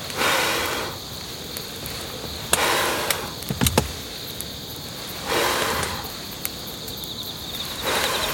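Four short breathy mouth sounds of a person eating hot tripe stew off a spoon, blowing and slurping, with a few soft clicks between them. Crickets chirp steadily in the background.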